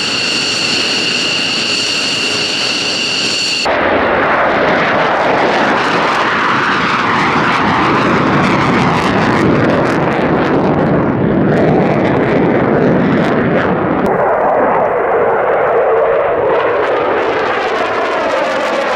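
Jet engines of a McDonnell Douglas F-15J fighter on the ground, giving a steady high-pitched whine over a rumble. About four seconds in it cuts abruptly to the loud roar of F-15Js flying a display pass overhead, and near the end the roar takes on a sweeping, phasing quality as a jet passes.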